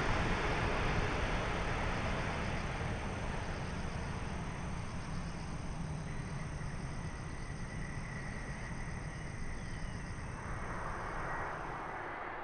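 Boeing 777-300ER airliner landing and rolling out, its jet engine noise a steady rumble that slowly fades. A thin, steady high-pitched tone runs above it.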